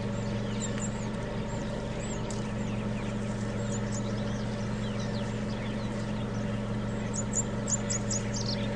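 Nature ambience: many short, high bird-like chirps over a steady low hum, with a quick run of chirps near the end.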